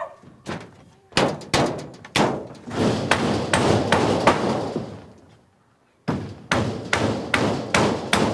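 A series of sharp knocks or blows, roughly two a second. They break off about five seconds in and start again about a second later.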